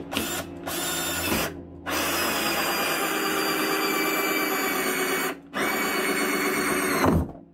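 Cordless drill spinning a 1.5-inch hole saw through the plastic wall of a storage tote. Two short bursts, then a long steady cut with one brief pause, stopping shortly before the end as the saw breaks through.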